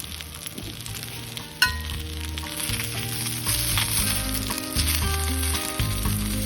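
Food frying in a hot pan with a steady sizzle, and a single sharp knock about one and a half seconds in.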